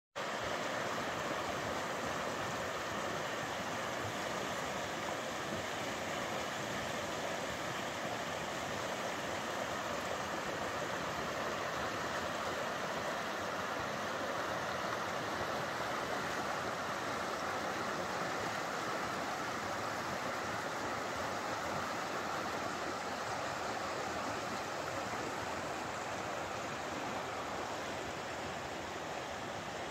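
Shallow river flowing over a rocky riffle: a steady, even rush of water, a little softer near the end.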